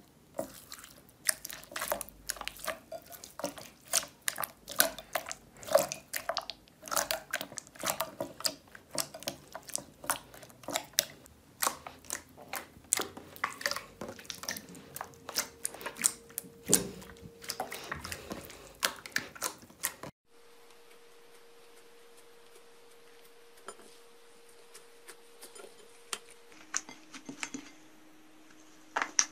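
Clear slime being pressed and squished by hand, giving a fast, irregular run of wet pops and crackling clicks for about twenty seconds. Then it cuts to a much quieter stretch with only a faint steady hum and a few soft clicks.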